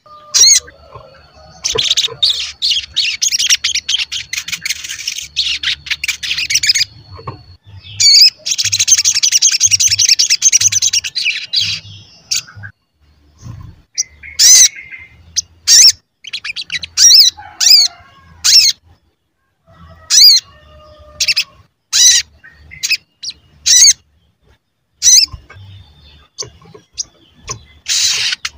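Male olive-backed sunbird singing in full voice: two long runs of rapid, high twittering song, then a string of separate sharp 'cuit' chirps roughly one a second, and the twittering song starting again near the end.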